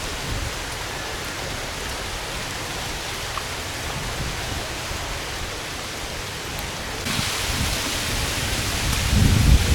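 Steady rain hissing, growing heavier about seven seconds in, with low rumbling near the end.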